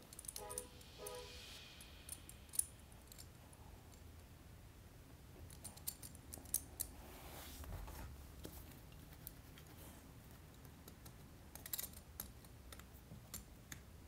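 Scattered faint clicks and small plastic snaps, a few sharper than the rest, as a keystone Ethernet jack's cap is pressed down over the wires.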